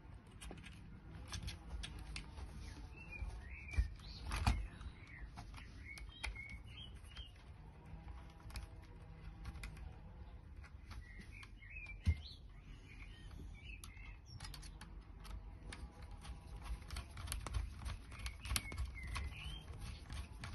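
Small clicks and knocks of parts and tools being handled during hands-on assembly of an RC car chassis, with two sharper knocks, about four and about twelve seconds in. Birds chirp in short bursts three times behind it.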